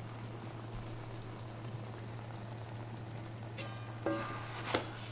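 Mashed potato frying in ghee in a kadhai, a soft steady sizzle. Plucked ukulele background music starts about three and a half seconds in.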